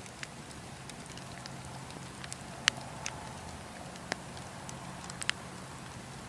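Fire burning with a steady hiss and scattered sharp crackles and pops, the loudest one about two and a half seconds in.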